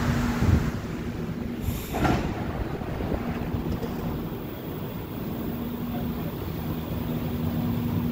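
Montreal métro rubber-tyred Azur train at the platform: a steady hum of its equipment over a low rumble, with a brief rushing burst about two seconds in.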